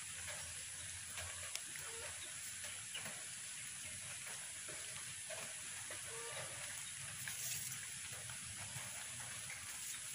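Faint clicks and scrapes of wire being twisted around bamboo slats by hand, over a steady high outdoor hiss, with a few short, faint animal calls in the distance.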